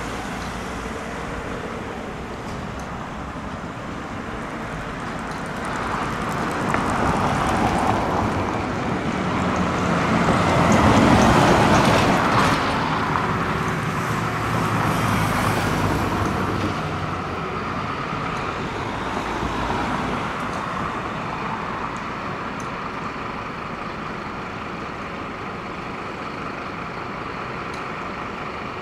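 Road traffic passing: several vehicles go by in swells that rise and fade, the loudest about eleven seconds in.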